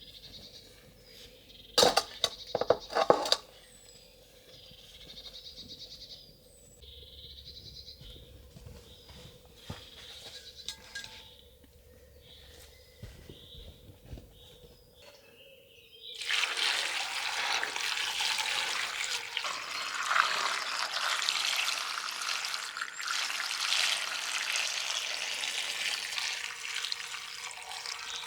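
Birds chirping faintly, with a cluster of sharp knocks about two seconds in. About halfway through, water starts running steadily and loudly.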